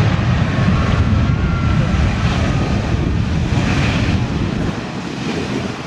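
Airbus A320 jet engines running loud and steady as the airliner rolls along the runway, with a faint whine over a low roar.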